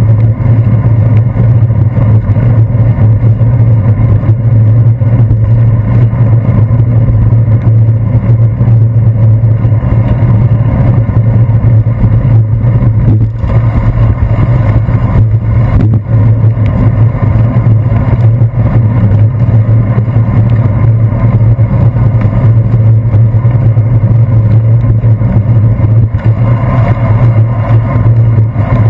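Loud steady low rumble of wind and road vibration on a handlebar-mounted GoPro Hero 2 on a bicycle riding over wet pavement.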